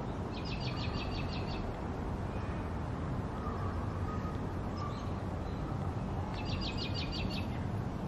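A small songbird trilling twice, each trill a quick, even run of about ten high notes lasting just over a second, over a steady low background rumble.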